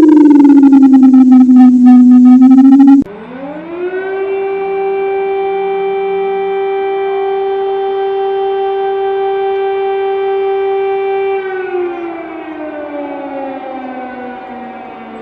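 Civil defence sirens: one winds down to a low pitch; then, after a sudden cut about three seconds in, another winds up quickly, holds one steady tone for about seven seconds and starts winding down near the end.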